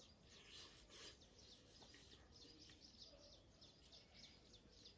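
Faint, high bird chirps repeated about three times a second over quiet background noise, with a brief rustle about a second in.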